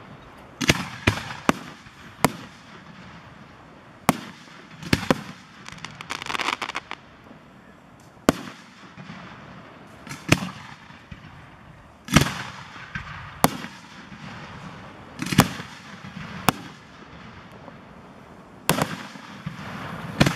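Aerial firework shells bursting: a string of sharp bangs at irregular intervals, some in quick pairs, with a short spell of crackling about six seconds in.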